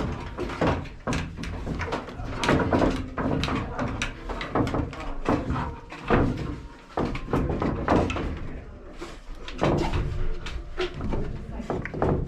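Irregular knocks, bumps and thumps of someone climbing up inside a church bell tower, with handling noise over a steady low rumble.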